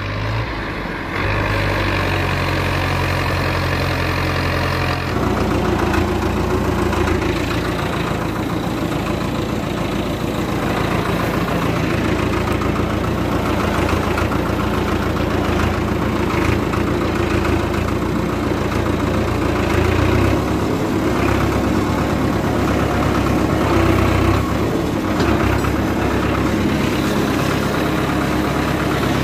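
Diesel tractor engine running steadily, heard from the driver's seat as the tractor drives. The engine note shifts about five seconds in and then holds steady.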